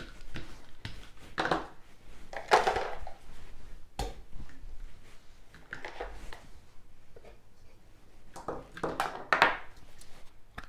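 Kitchen handling noises: a small dough roller and utensils handled on the counter, with a sharp click about four seconds in and a small tub handled near the end.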